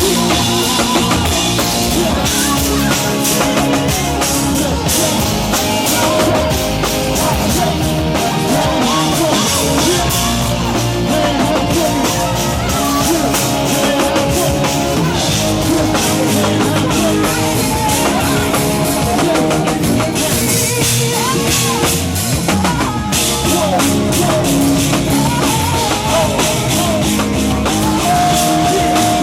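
Live band music with a drum kit playing throughout.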